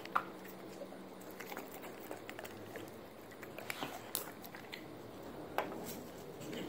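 American Bully licking carrot baby food off a plastic toy spoon: scattered wet smacks and small clicks of tongue and mouth, a few of them sharper.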